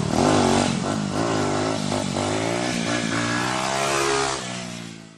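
Motorcycle engine revving, its pitch rising and falling several times, then fading out near the end.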